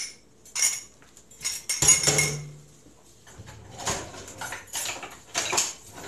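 A series of separate clinks and knocks of dishes and kitchen utensils: a small bowl set down and a utensil drawer opened, with utensils rattling as a wooden spoon is taken out.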